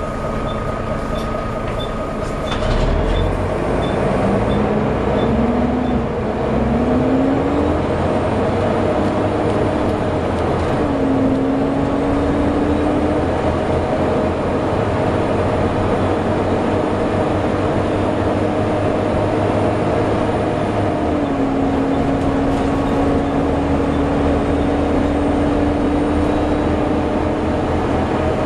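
Volvo B7TL double-decker bus pulling away with its loud hoover-like whine, which rises twice in pitch in the first several seconds and then holds steady as the bus runs on. Near the start there are short high beeps about twice a second, ending in a low thump.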